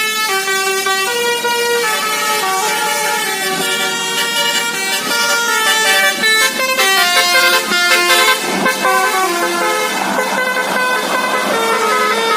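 Indonesian bus 'basuri' telolet musical horn playing a tune of held notes that step up and down in pitch. A brief rush of noise comes about eight seconds in.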